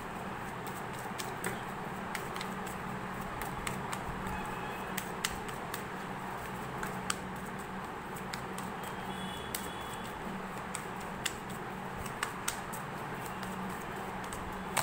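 Tarot cards being shuffled by hand: soft, irregular light clicks and taps of the cards over a steady background hum.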